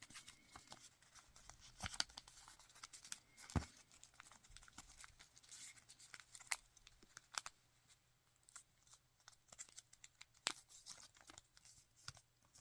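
Origami paper crinkling and rustling faintly as it is folded and creased by hand, with scattered soft crackles and ticks.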